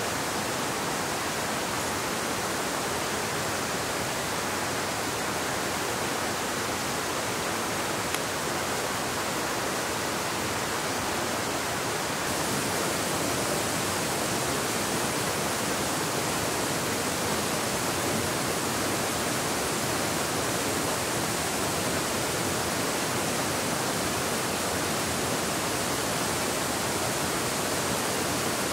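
Steady, even rush of water, becoming slightly louder about twelve seconds in.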